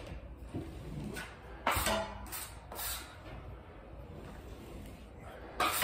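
Metal taping knife scraping pre-mixed joint compound along a drywall inside corner, a few short scraping strokes.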